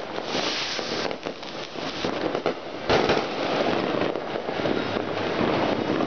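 Fireworks and firecrackers going off nonstop, a dense crackle of many small bangs, with one louder bang about three seconds in.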